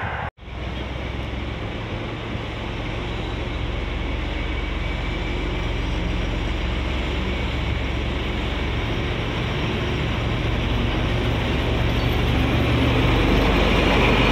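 SU46 diesel-electric locomotive running into a station with a passenger train, its diesel engine a steady low rumble that grows louder as it draws level and passes. A thin high squeal comes in near the end.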